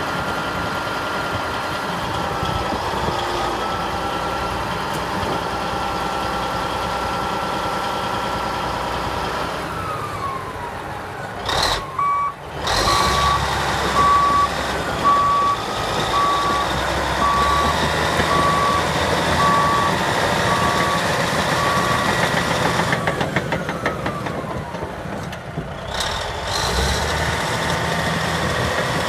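1988 Caterpillar D8N bulldozer's diesel engine running, its pitch rising and falling several times. Partway through, the backup alarm beeps steadily about once a second for roughly ten seconds, as the dozer goes into reverse.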